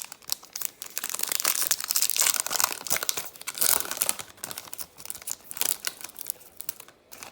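A trading-card pack wrapper being torn open and crinkled by hand, a dense crackling and rustling that stops near the end.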